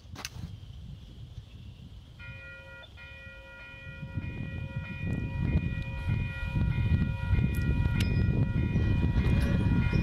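Canadian Pacific diesel freight locomotive approaching: its air horn sounds a steady multi-note chord from about two seconds in, briefly broken, while the low rumble of engines and wheels builds and grows louder from about four seconds in.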